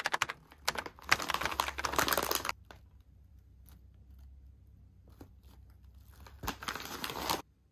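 Foil-lined potato chip bag crinkling loudly as it is handled and pulled open, then a second burst of crinkling near the end.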